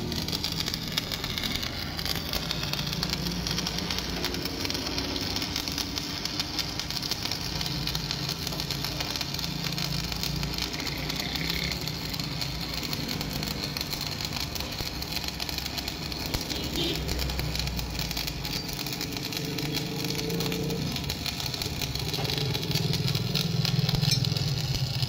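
Stick arc welding on steel plate: the electrode's arc gives a steady crackling sizzle, with a low engine-like drone underneath.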